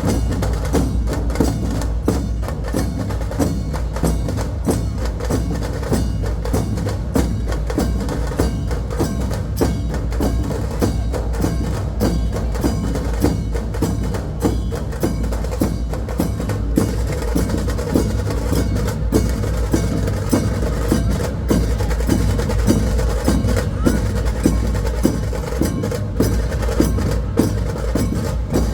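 Dhol-tasha ensemble drumming: massed dhol barrel drums under sharp, rapid tasha strokes, in a loud, steady, driving rhythm.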